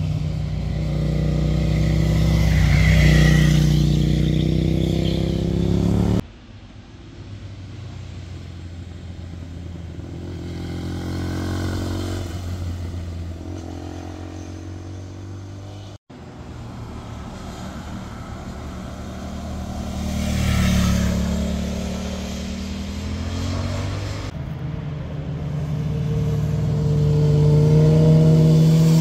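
Motorcycle engines passing through a tight hairpin bend, the engine note dropping and then rising as each bike slows, leans through and accelerates out. The sound changes suddenly a few times as one pass gives way to another, and near the end several bikes come through together.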